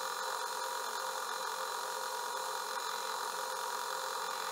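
Atlas metal lathe running steadily, a whine of several steady tones over a hiss, while a starter bit centre-drills a dimple into the end of a spinning aluminum blank.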